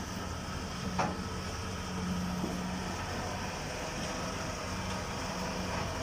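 Kubota combine harvester's diesel engine running steadily as the tracked machine drives down ramps off a truck bed, with a sharp knock about a second in.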